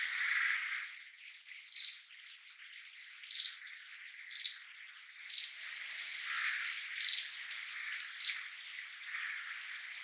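Long-tailed tit calling: six thin, high notes that each fall in pitch, about a second apart, with faint, very short high notes scattered between them.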